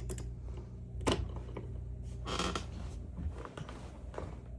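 Small clicks and a short scrape of metal parts as a picked-open padlock is handled, over a steady low hum.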